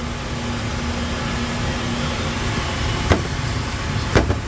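Steady machine and fan hum in a workshop, with a faint steady tone that stops about two and a half seconds in. Two sharp clicks about a second apart near the end.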